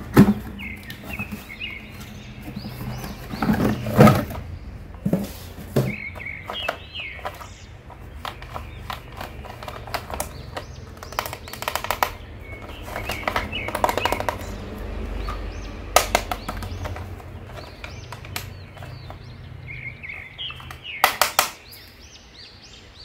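Cardboard box and plastic packaging being handled while a toy figure is unboxed: rustling, scraping and sharp clicks and knocks, with a quick cluster of clicks near the end.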